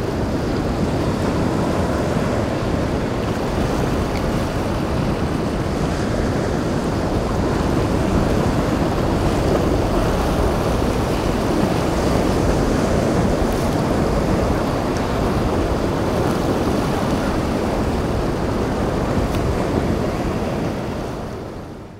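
Rough inlet water rushing and breaking around a motor yacht's hull and wake, with wind buffeting the microphone and the boat's engines running underneath as a steady rumble. The sound fades out near the end.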